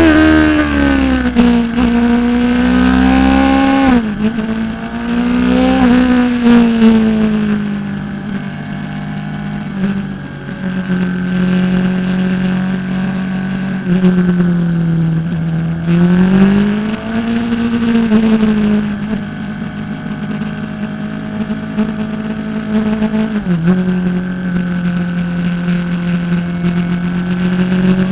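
600 cc supersport racing motorcycle engine at high revs, heard from the bike's onboard camera with wind rush. The engine note falls and rises with the throttle through the corners, dropping sharply at gear changes about four seconds in and again near the end.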